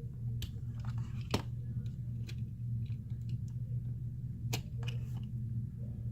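Small clicks and rustles of adhesive tape strips and tools being handled on a phone's frame, two sharper ticks among them, over a steady low hum.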